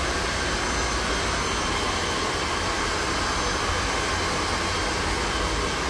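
Steady, unbroken rush of blowing air from a motor-driven blower, even in level and pitch.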